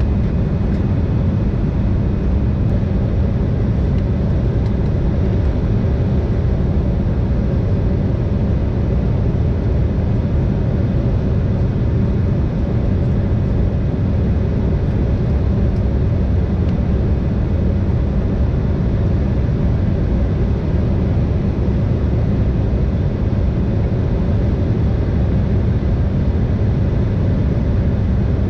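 Steady cabin noise of an Embraer ERJ-170 airliner in flight: an even drone of its twin CF34-8E turbofans and rushing air, heaviest in the low rumble and unchanging throughout.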